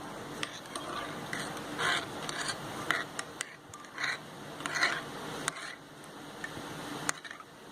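A spoon scraping and clinking against a container while pineapple juice is stirred with honey and pepper powder: a series of short scrapes with light clicks between them.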